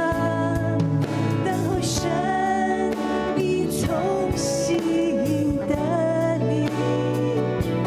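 A woman singing a slow Mandarin Christian worship song into a microphone over instrumental accompaniment.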